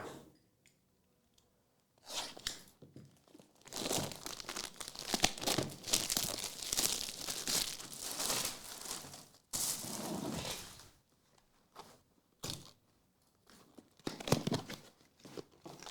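Plastic wrapping of trading-card packaging being torn open and crinkled: a long stretch of tearing and crinkling, followed by a few short rustles near the end.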